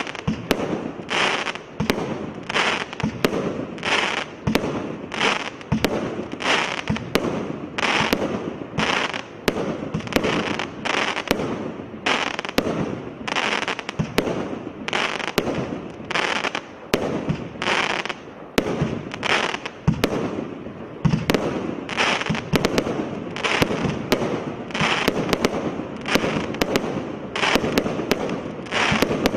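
Twisted Twins firework firing a rapid, unbroken string of shots, about one and a half a second. Each shot is a short hiss with sharp cracks and pops over it.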